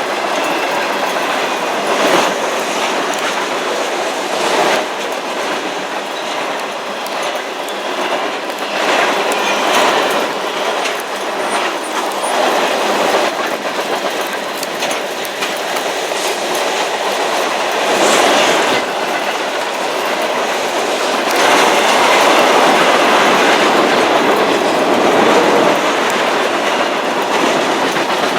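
Railroad cars rolling steadily past, their wheels clattering over rail joints; the long unbroken pass fits the CSX Q300 freight train.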